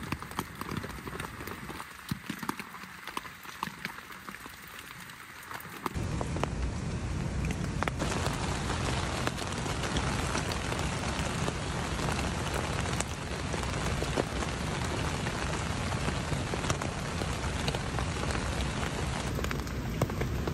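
Rain falling on a tent's fabric, heard from inside the tent. At first it is a light patter of separate drops ticking on the fabric. About six seconds in, it gives way to louder, steadier, denser rain on the tent.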